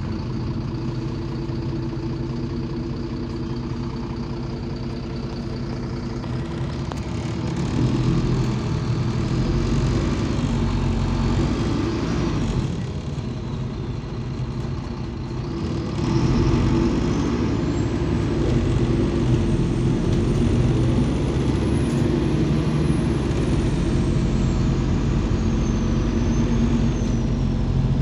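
Heard from inside the cabin of a MAZ 203 city bus, its Mercedes-Benz OM 926 LA six-cylinder diesel runs at low speed, then grows louder as the bus accelerates about seven seconds in. It dips briefly around twelve seconds and picks up again near sixteen seconds. A faint high whine rises and falls in the second half.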